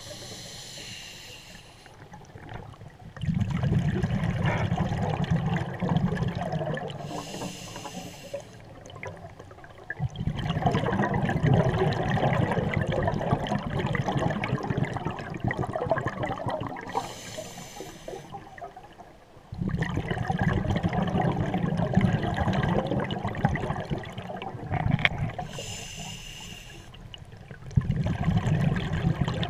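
Scuba diver breathing through a regulator underwater, heard four times over: a short hissing inhale, then a long bubbling exhale several seconds long.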